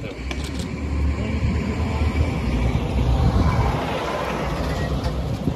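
Fire engine pulling up close with its engine running. The rumble swells to its loudest about three to four seconds in, then eases.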